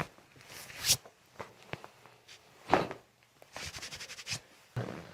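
Joints cracking during a chiropractic adjustment: a few sharp pops, then a quick run of crackling clicks about three and a half seconds in.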